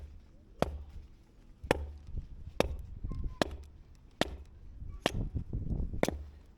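Wood being chopped: seven sharp chopping blows, roughly one a second.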